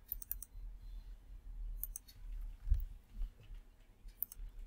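Computer mouse button clicks: a quick cluster at the start, one about two seconds in and a couple near the end, over a faint low hum.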